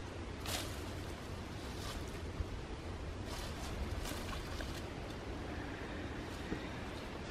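Steady low wind rumble on the microphone outdoors, with a few faint brief rustles.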